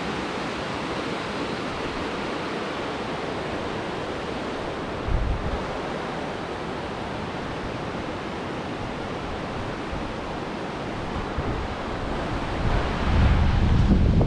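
Steady rush of a river running high after days of heavy rain. Wind buffets the microphone briefly about five seconds in and again, more strongly, near the end.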